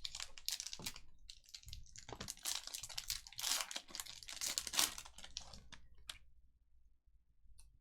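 Panini Prizm trading-card pack wrapper being torn open and crinkled by hand, a dense crackling that dies away about six seconds in.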